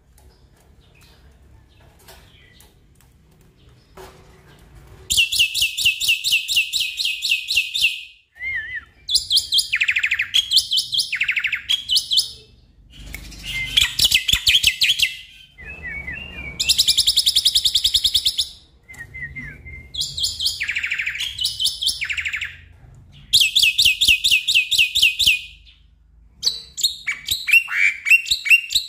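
Black-winged myna (jalak putih) singing: bouts of fast, rattling high notes a few seconds long with short pauses between, and some lower falling notes in the gaps. The song starts about five seconds in.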